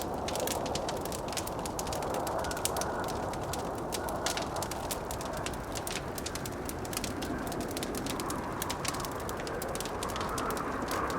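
Wood fire crackling with frequent sharp pops over the steady rush of blizzard wind, the wind swelling a little higher near the end.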